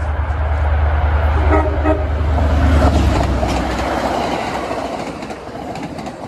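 A diesel-hauled CTrail commuter train passing at speed. The locomotive's deep rumble comes with a short horn blast about one and a half seconds in, then the coaches rush by with wheel and rail clatter that slowly fades as the last car goes past.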